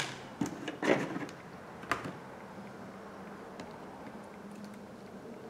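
Light clicks and knocks from iPhone 7 Plus parts and small tools being handled and set down on a work mat, four or five within the first two seconds. After that only a faint steady background hum.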